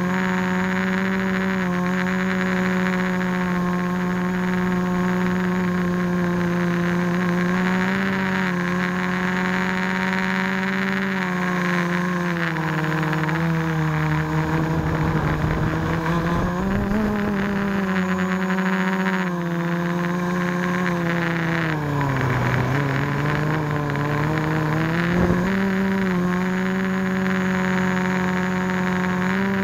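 Quadcopter's electric motors and propellers whining steadily, the pitch sagging and rising as the throttle changes, most deeply about two thirds of the way in. Low rumbling gusts a couple of times.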